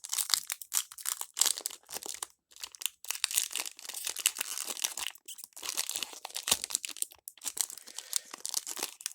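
Foil wrapper of a Pokémon TCG Astral Radiance booster pack crinkling and tearing as it is opened by hand, in irregular crackling bursts with two brief pauses.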